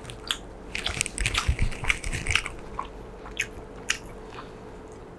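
A man chewing a mouthful of juicy chicken in gravy, close to the microphone: quick wet smacks and clicks, thick for the first couple of seconds, then a few scattered ones, over a faint steady hum.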